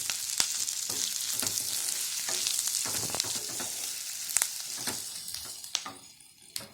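Curry ingredients frying in hot oil in a pan, sizzling steadily, with sharp clicks of a spatula stirring against the pan. The sizzle dies down about five and a half seconds in.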